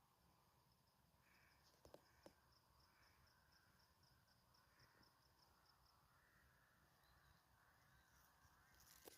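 Near silence: faint outdoor ambience with a faint, rapid, high-pitched chirping of about five pulses a second through the first half, and two soft clicks about two seconds in.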